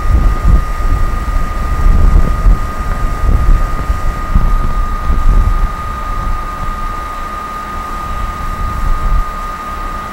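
Wind buffeting the microphone in gusts, easing a little after about six seconds, with a thin, steady high-pitched whine running underneath.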